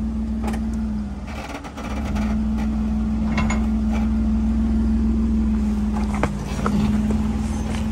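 Jeep Wrangler JK's engine running at steady revs as it crawls up a rock ledge. The engine note dips briefly about a second and a half in and again near the end, with a few short clicks and knocks over it.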